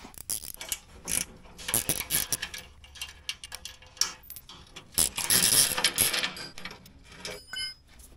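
Ratchet clicking, with small metal knocks and rattles, as the bolts holding a snow plow's skid shoe are undone. The sound comes in uneven bursts, with a quick run of ticks near the end.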